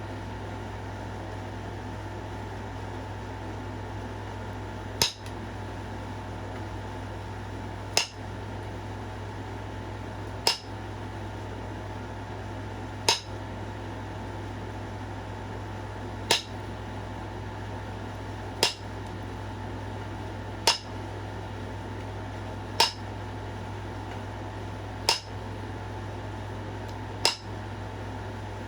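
Pressure flaking a knapped point: ten sharp, ringing clicks, one every two to three seconds starting about five seconds in, each a flake snapping off the edge under the flaker while the knapper works at step fractures.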